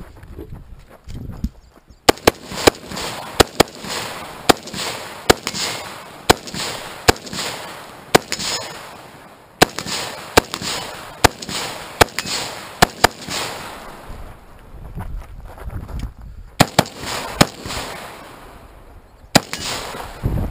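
AR-15-style rifle firing a string of about eighteen shots at an even, quick pace, each shot trailing a short echo. There is a pause of about three seconds partway through before the last few shots.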